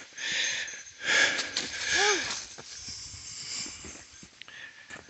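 A person breathing hard from climbing a short, steep slope: three heavy breaths in the first couple of seconds, one with a brief voiced groan, then quieter breathing.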